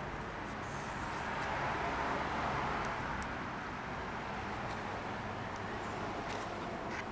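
Steady outdoor background noise of distant road traffic, swelling a little two to three seconds in, with a few faint ticks.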